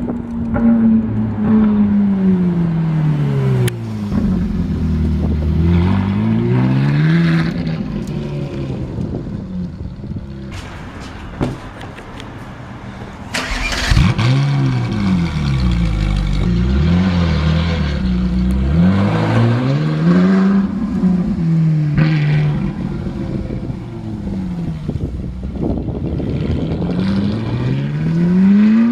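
Ferrari 458's flat-plane V8 through a Novitec F1 exhaust, its pitch sliding slowly down and back up several times as the car slows and speeds up or passes. It drops away to a quieter stretch past the middle, then comes back hard with a sudden loud rev.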